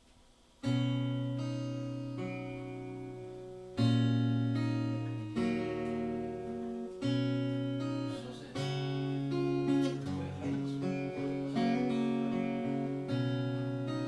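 Acoustic guitar playing an instrumental intro: chords struck and left to ring, each fading until the next one is struck a second or few later.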